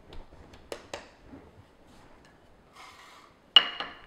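Light clicks and knocks of baking tools and hands on a granite countertop while dough is pressed together and a wooden rolling pin is taken up. The loudest is a sharp knock with a brief ring near the end, followed by a smaller knock.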